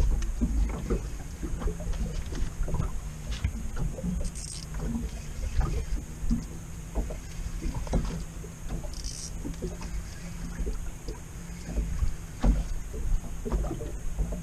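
Scattered knocks and clicks of tackle and handling in an inflatable PVC boat as a hooked fish is reeled in, over a low rumble, with one sharp knock at the very start.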